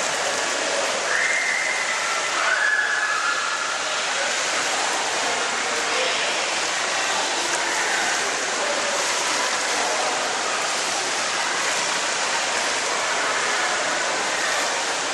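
Steady rushing water noise of an indoor swimming pool hall, with two short high tones about one and two and a half seconds in.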